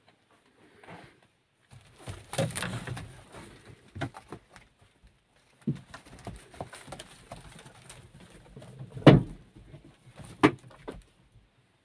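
Rustling and scattered knocks in a sheep pen as sheep move over straw against wooden boards, with the loudest knock about nine seconds in.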